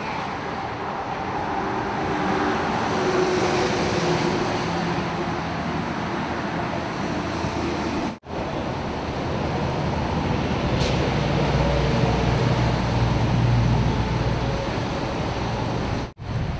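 Steady traffic and roadway noise, with the low hum of idling vehicle engines underneath that grows stronger in the second half. The sound drops out briefly twice, about eight seconds in and near the end.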